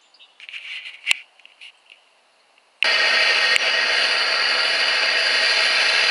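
Faint handling noises with one sharp click about a second in. Then, starting abruptly near the middle, the loud, steady rushing noise of an MSR Dragonfly white-gas camp stove burning under a pot of water.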